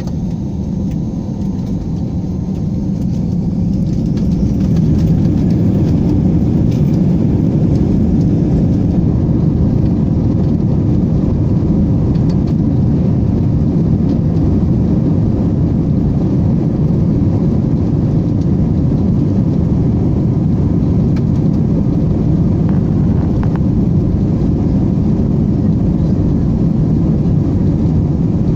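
Airliner taking off: jet engines at takeoff power with a loud, steady low rumble that swells about four seconds in and then holds.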